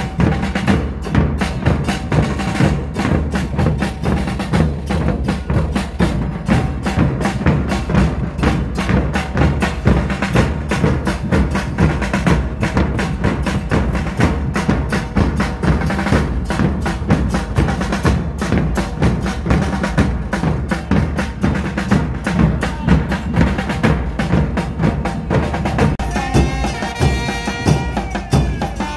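Street percussion band of bombos (large bass drums) with cymbals mounted on top, pounding a fast, steady rhythm with clashing cymbals. About 26 seconds in, trumpets join with a melody over the drums.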